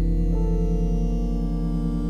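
Ambient music: sustained synthesizer chords held over a deep bass drone, the chord changing about a third of a second in.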